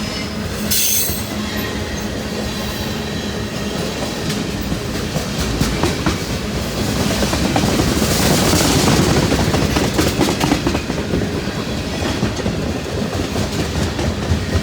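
Freight cars of a long CN freight train rolling past, the wheels clattering over the rail in a steady rush of noise that swells to its loudest around the middle.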